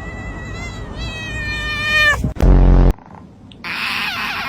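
Domestic cat giving a long, high-pitched, drawn-out meow for about two seconds that bends down at the end. About half a second later comes a short, loud, low buzz, and near the end a busier high sound sets in.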